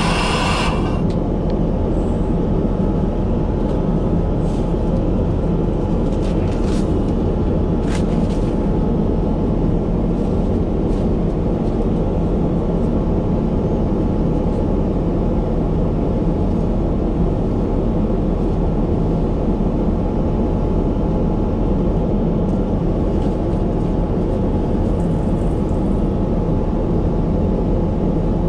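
Steady low drone of an airliner in flight, engine and airflow noise, heard inside the aircraft lavatory. A louder hiss cuts off within the first second, and a few faint clicks come a few seconds later.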